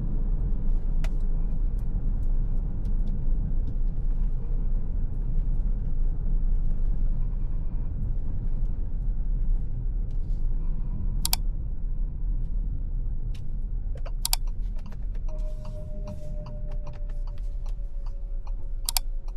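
Steady low rumble of a Ford Territory Titanium X Hybrid driving on the road, heard from inside the cabin. A few sharp clicks come about halfway through and near the end.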